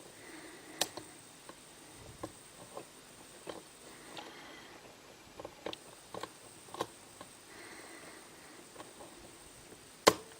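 Lock pick working the pin stack of a Lockwood key-in-knob cylinder under tension: scattered light clicks and ticks, then one sharp, much louder click near the end, a pin setting at the shear line.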